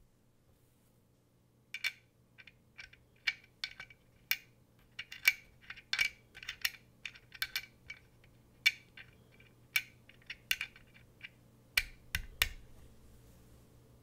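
Keystrokes on a Think 6.5 V2 gasket-mounted mechanical keyboard with lubed Alpaca linear switches and GMK keycaps: sharp, irregular clicks, about two a second. They start about two seconds in and stop about a second and a half before the end.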